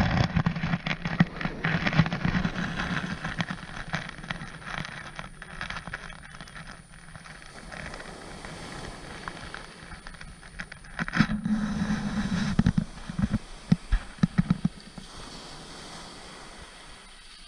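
Waves breaking and surf washing up a shingle beach, with wind buffeting the microphone in gusts and many small crackles and knocks. The gusts are strongest at the start and again about two-thirds of the way through.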